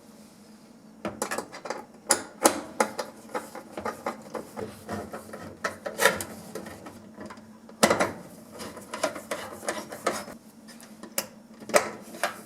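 Quick, irregular metallic clicks and rattles of hex-head screws being driven in and tools handled against sheet metal as a gas range's control board is fastened back in place, over a faint steady hum.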